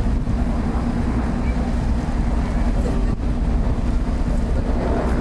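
Sakurajima car ferry's engines running steadily under way, a constant low drone with a steady hum, with wind noise on the microphone.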